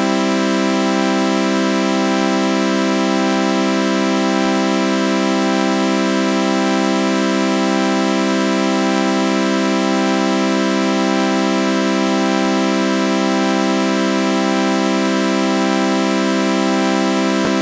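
Synthesized sawtooth-wave chord held steady under a flanger effect, its tone sweeping slowly and evenly about once a second.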